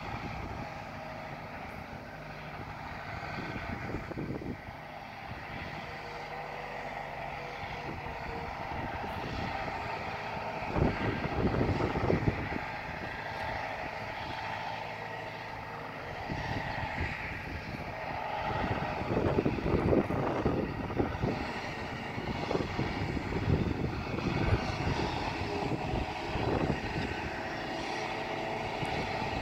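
Tractor engine running steadily as it pulls a slurry tanker spreading slurry across a field, with louder rushes of noise every so often.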